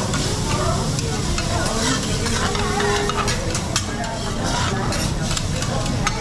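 Food sizzling on a teppanyaki griddle, with frequent sharp clicks and scrapes of metal spatulas against the steel plate.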